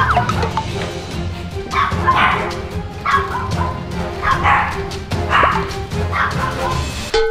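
A dog barking several times, about a second apart, over background music with a steady beat.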